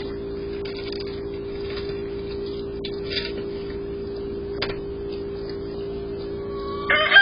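Steady electrical hum with a few faint clicks, the recording noise of a fixed security-style camera. Near the end a rooster starts to crow.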